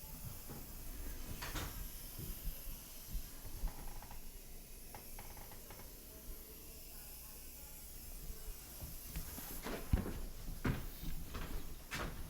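Scattered light knocks, taps and clicks of wooden trim casing being handled and fitted in place, with a few sharper, louder knocks about ten seconds in and near the end.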